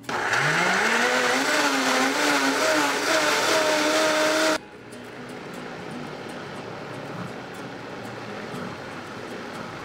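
Countertop blender puréeing tomatoes, onion, jalapeño and garlic in broth into salsa: the motor spins up with a rising whine, then runs loud and steady. About halfway through, the sound drops suddenly to a quieter, even rushing.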